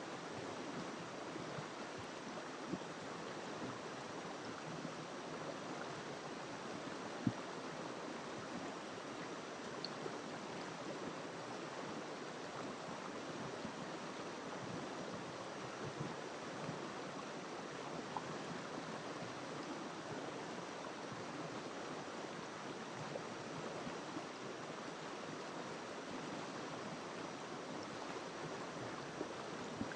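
River water flowing over rocks, a steady rushing that does not change, with a few faint ticks, the sharpest about seven seconds in.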